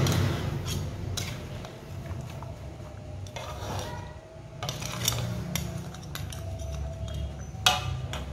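A spatula scraping and knocking against a metal wok as crab pieces, prawns and corn in thick sauce are stirred and turned, in irregular strokes. One sharp clack near the end stands out, over a steady low rumble.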